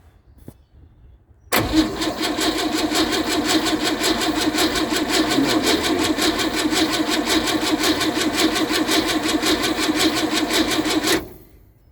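A 1951 Chevrolet inline-six on its starter motor, cold-cranking after months of sitting, with fuel only just reaching the carburettor's bowl. It cranks over in an even rhythm of about five pulses a second for about ten seconds without catching, then stops abruptly.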